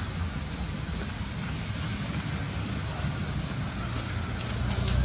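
A car running: a steady low rumble of engine and road noise.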